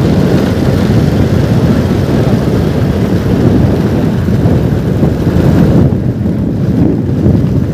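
Wind buffeting the microphone: a loud, steady low rumble with no distinct tones.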